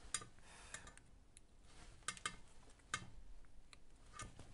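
Faint, scattered clicks and light taps from tools and wires being handled on an opened battery pack, about a dozen small knocks, the sharpest around two and three seconds in.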